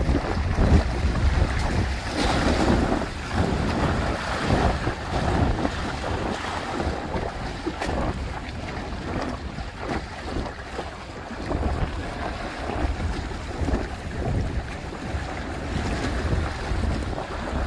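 Wind buffeting the microphone over water rushing and splashing along the hulls of a Hobie Tandem Island sailing kayak under sail in choppy sea, rising and falling in uneven surges.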